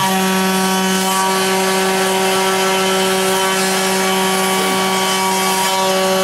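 CNC router spindle running at a steady pitch with a constant whine, mixed with the hiss of the cutter milling timber and the dust extraction running.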